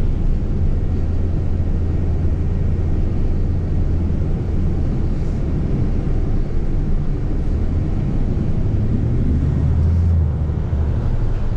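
Nova Bus LFS city bus heard from inside while it is moving: a steady low drivetrain hum over a constant rush of road noise, the hum swelling slightly about ten seconds in.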